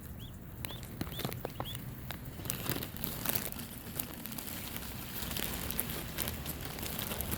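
Bag of bread crinkling and crackling as it is handled, with a few short high chirps in the first two seconds.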